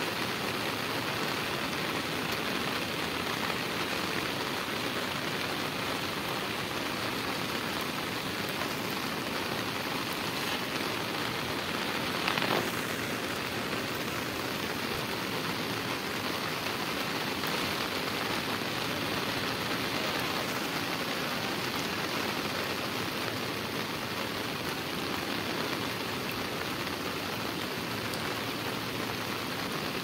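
Heavy rain falling on a river's surface and the bank around it, a steady hiss, with one short louder noise about twelve seconds in.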